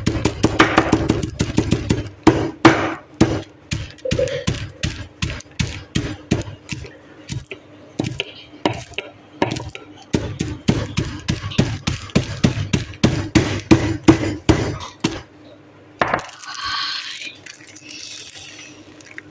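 Cheetos being pounded and crushed: rapid, irregular crunching knocks, several a second, that stop about fifteen seconds in. Then the foil-lined Cheetos bag crinkles as it is handled.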